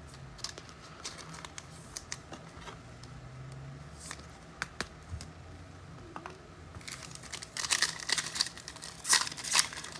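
Foil trading-card pack wrappers and cards being handled: light rustling with scattered small clicks, growing denser and louder from about seven seconds in.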